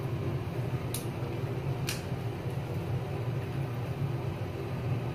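Steady low background hum of the room, with two faint light clicks about a second apart, near one and two seconds in.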